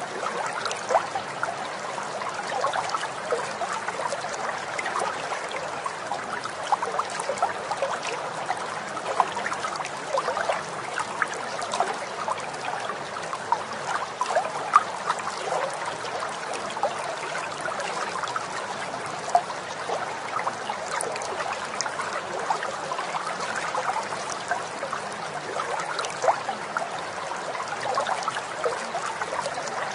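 Running water trickling and babbling steadily, like a small stream, with many small irregular splashes.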